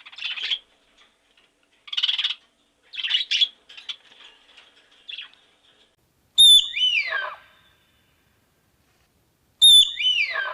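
Bird calls: a few short chirps, then two loud calls about three seconds apart, each starting sharply and sliding steeply down in pitch.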